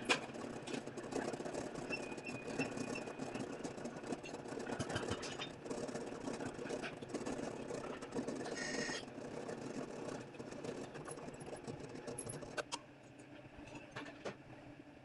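Drill press running, its bit cutting a hole through a metal bar held in a drill vise: a steady motor hum with scattered clicks, which quietens about three-quarters of the way through.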